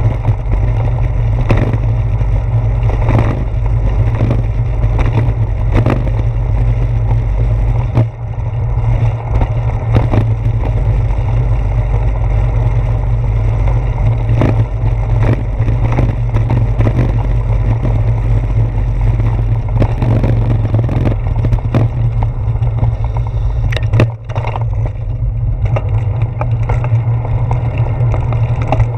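Steady low wind rumble and road vibration on a bicycle's handlebar-mounted GoPro Hero 4 as it rolls along, with frequent sharp knocks as the wheels jolt over the brick and asphalt street.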